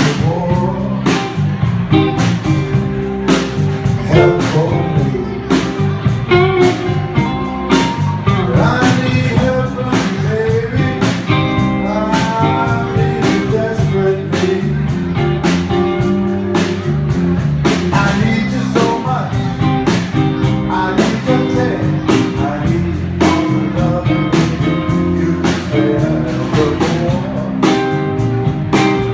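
A live blues band playing: a man singing over electric guitar and a drum kit keeping a steady beat.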